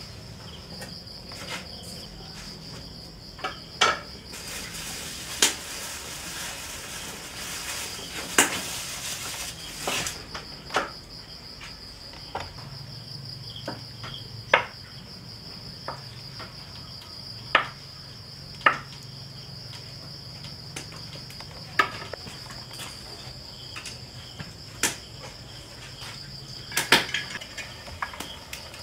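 Steady high insect chirring, with sharp knocks and clinks of kitchen utensils against pots and dishes coming irregularly every second or two.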